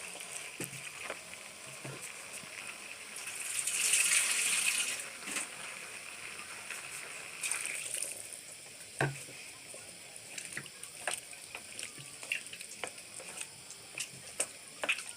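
Food frying in a pot of potato and bean stew, with scattered clicks of a spoon against the pot as it is stirred. About three seconds in, a loud two-second rush of liquid.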